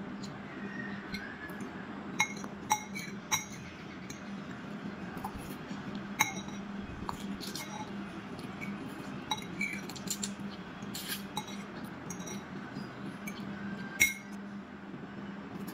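Metal fork clinking against a ceramic plate in a string of sharp, irregular clinks, the loudest one near the end.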